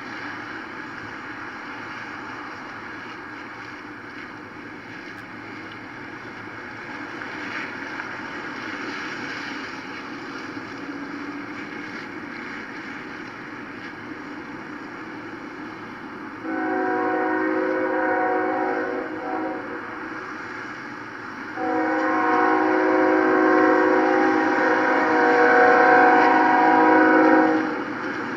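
Locomotive air horn sounding a chord of several notes: a long blast about two-thirds of the way in, then a longer one of about six seconds near the end, over steady background noise.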